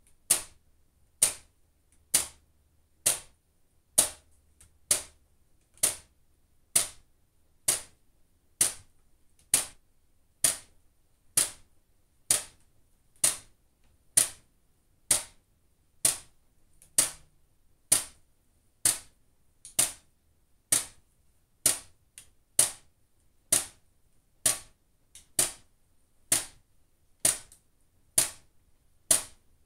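Single water drops falling from a faucet onto a plastic bag, each landing as a sharp tap. They come at a steady rhythm, a little faster than one a second.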